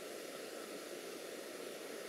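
Steady faint hiss of room tone and recording noise, with no distinct events.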